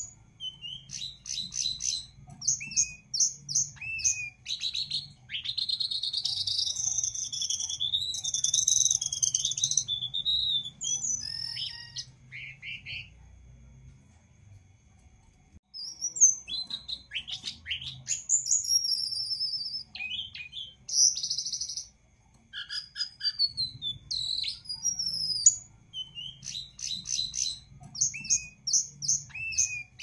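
A caged jongkangan songbird singing: quick high trills of rapid repeated notes and a long warbling run, with a break of a couple of seconds about halfway through before the trilled phrases resume.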